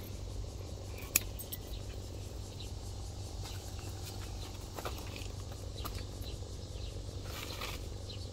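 Vines and leaves rustling with scattered faint clicks as someone works through a squash trellis, over a steady low rumble. A single sharp click stands out about a second in.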